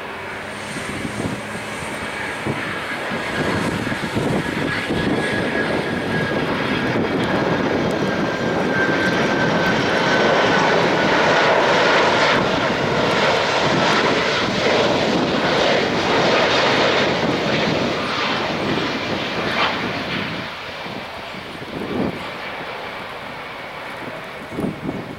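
Boeing 767-300ER jetliner on final approach with landing gear down, its jet engines passing low. The engine noise builds to its loudest about halfway through, with a high whine slowly falling in pitch, then fades as the jet flares over the runway.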